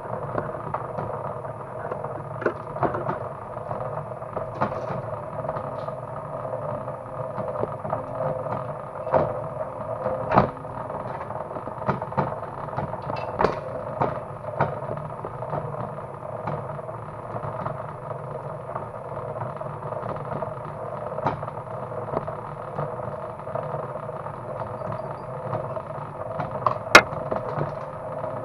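Homemade motor-driven wire stripping machine running with a steady hum, with irregular clicks and knocks from its mechanism and one sharp crack near the end.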